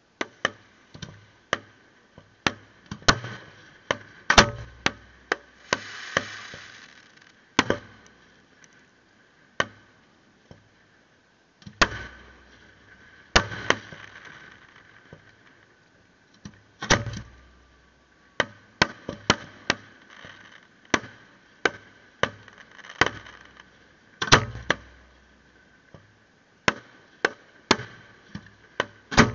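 Aerial fireworks exploding in an irregular string of sharp bangs, several with a deep booming tail, and a hissing crackle trailing some bursts. There is a brief lull about ten seconds in before the bangs resume.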